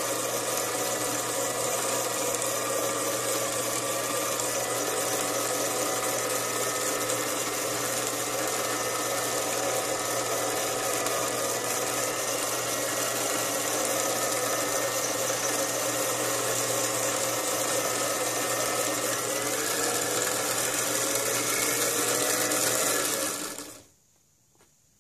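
Small motor-driven cutter spindle running steadily as it cuts the leaves of a seven-leaf clock pinion: an even mechanical whine with several steady tones that drift slightly in pitch. Near the end the machine switches off and the sound stops abruptly.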